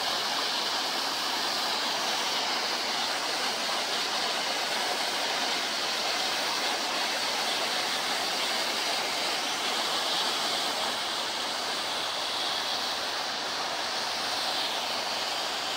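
Waterfall pouring onto rocks close by, a steady, even rush of falling water.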